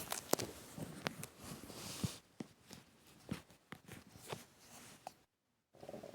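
A person's stomach gurgling, with scattered small pops and clicks and a brief squeak about five seconds in. A breath is heard around two seconds in, and a short low gurgle comes near the end.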